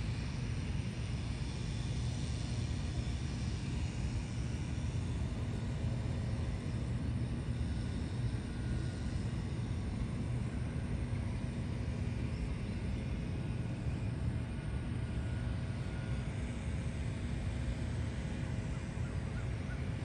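Steady low rumble of distant engine noise, with a faint even hum over it.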